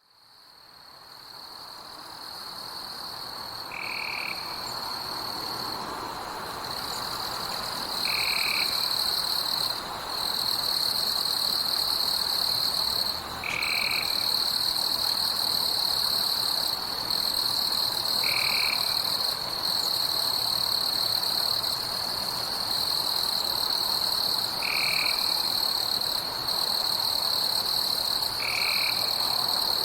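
Night forest ambience of insects: a steady high-pitched trill with short breaks, fading in over the first few seconds. A short call repeats about every four to five seconds.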